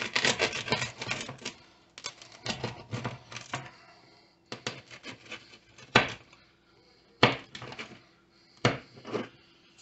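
Wheeled pizza cutter rolling through a baked pizza and clicking and scraping on the metal baking tray under it. A rapid clatter of clicks comes first, then a looser run, then several single sharp clicks a second or so apart.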